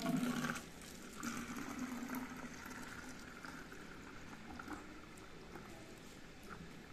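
Thick lassi pouring from a steel pot into a plastic water bottle. It is loudest as the pour starts, then settles to a steady filling sound that fades as the bottle fills.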